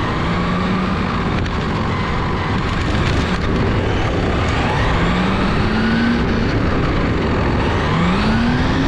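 1/8-scale GT RC cars racing on track over steady loud noise. Their motors whine up in pitch as they accelerate, several times over.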